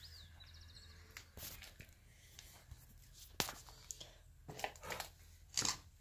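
Footsteps crunching over broken plaster, tile and wood debris on a floor: a handful of irregular crunches and knocks, the loudest near the end.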